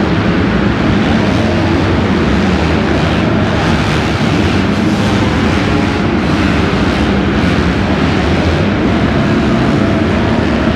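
A pack of motocross dirt bikes racing together around an indoor arena track, their engines blending into one loud, steady din under the hall's metal roof.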